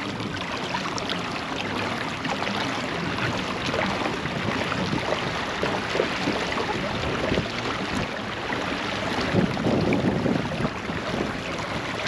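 Water churning and splashing steadily behind a kayak's propeller pedal drive as it moves forward. It grows somewhat louder and lower for a moment about ten seconds in.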